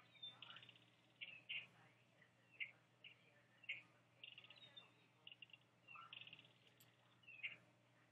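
Faint, high peeping from wood duck ducklings: short notes that slide downward, repeated irregularly, mixed with brief quick trills, over a low steady hum.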